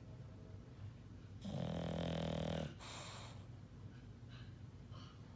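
English Bulldog snoring in her sleep: one long snore about one and a half seconds in, then quieter breathing with a few faint short catches near the end.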